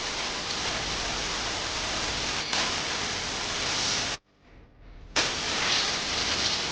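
Dry ice blaster spraying, a steady loud hiss of compressed air and pellets while cleaning a motorcycle's underside. It cuts off abruptly about four seconds in and starts again a second later.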